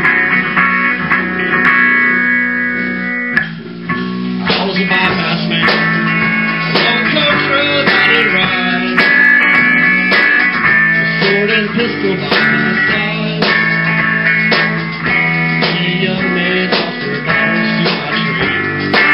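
A small band playing live in a room: electric guitar over a drum kit. The sound drops briefly about three and a half seconds in, then carries on with steady drum hits.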